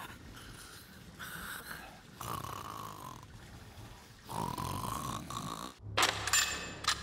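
Cartoon snoring from a character asleep in bed: three long, drawn-out snores of about a second each. Near the end the snoring cuts off and a sudden, louder noise begins.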